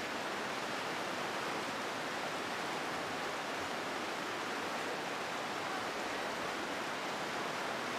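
Steady rush of whitewater pouring through a concrete slalom channel, an even noise with no change.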